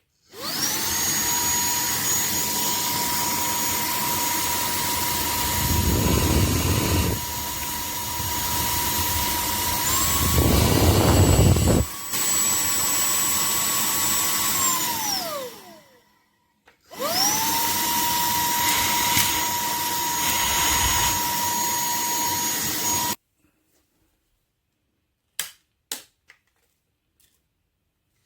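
SERVOMASTER cordless handheld vacuum cleaner running with a steady high motor whine. About ten seconds in it steps up in pitch, as when switched to its higher speed, and there are two short spells of deeper rushing rumble. It winds down, starts again with a rising whine, then cuts off suddenly, followed by a few clicks.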